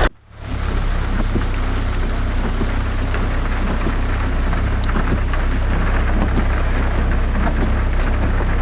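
Rain falling steadily, with many small scattered drop hits over a continuous low rumble; it starts after a brief gap.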